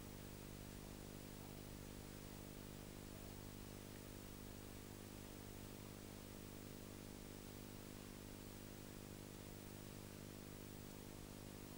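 Faint, steady electrical hum with hiss: soundtrack background noise, with no other sound.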